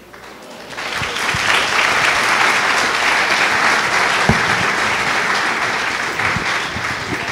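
Audience applauding, building up over the first second or so and slowly thinning toward the end.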